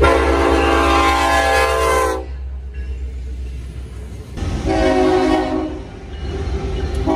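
Diesel freight locomotive horn sounding a long blast, then a shorter blast about four and a half seconds in, and another beginning near the end, over the low rumble of the train rolling past.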